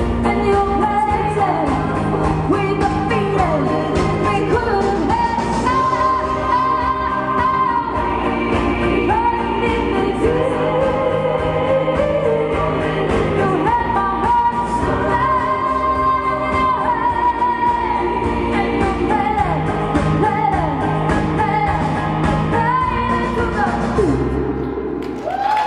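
A woman sings a pop song into a handheld microphone over backing music with a steady beat, holding several long notes.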